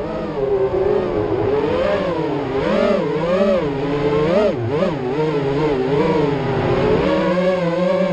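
Racing quadcopter's four brushless motors (Racerstar 2205 2600kv) spinning three-blade 5-inch props, a continuous whine that rises and falls quickly as the throttle is worked, holding steadier near the end.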